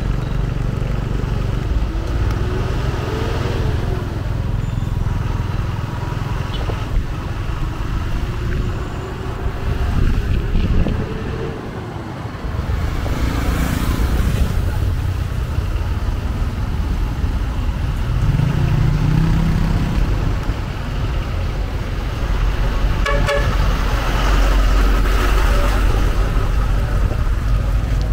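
Road traffic: a steady rumble of passing vehicle engines, with engine pitch rising and falling as vehicles go by, and a quick run of beeps about four-fifths of the way through.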